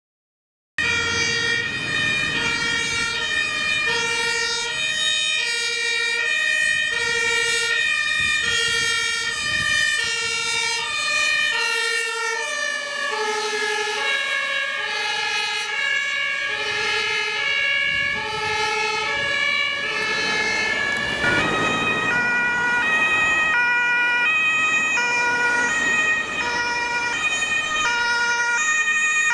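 Several German two-tone Martinshorn sirens on fire-service vehicles sounding together, each switching steadily between a high and a low tone, out of step with one another. The pitch of the sirens shifts slightly lower about halfway through.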